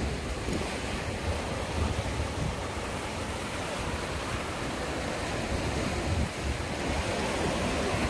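Sea waves washing and breaking against shoreline rocks, a steady surf noise, with wind rumbling on the microphone.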